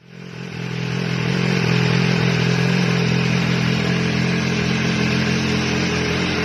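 2018 BMW S1000RR inline-four engine idling steadily through an AR GP1R slip-on exhaust, fading in over the first second.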